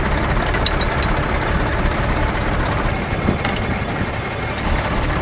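Diesel tractor engine idling steadily, with a couple of light metallic clicks as the winch is clamped in place.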